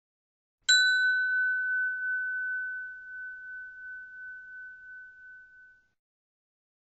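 A single bell-like chime struck once about a second in, ringing on one clear high note and fading away over about five seconds with a slight wavering.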